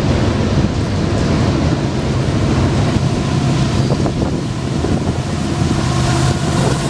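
Freight train cars rolling past on the rails, a loud steady rumble, with a diesel locomotive's engine hum growing stronger toward the end as the mid-train DPU locomotive approaches.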